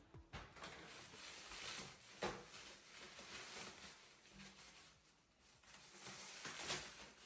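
Faint rustling and handling noise in a small room, with a few sharp clicks or taps, the loudest about two seconds in and another near the end.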